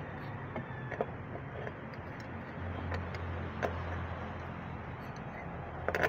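A few sharp metallic clicks and knocks of a pipe wrench working a threaded pipe fitting on a water pump, over a steady low hum.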